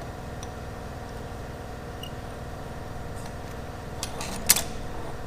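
Steady hum of running shop machinery, with a few light clicks and then one sharp clink of steel parts about four and a half seconds in.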